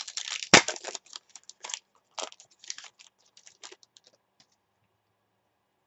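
A stack of trading cards being handled and flicked through, cards sliding and snapping against each other in a quick run of papery clicks and rustles. The sound is loudest about half a second in and thins out after about four seconds.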